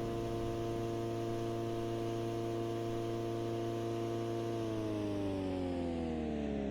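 Federal Signal Thunderbolt 1003 outdoor warning siren sounding a steady chord-like tone, which begins to wind down about two-thirds of the way through, its pitch falling steadily.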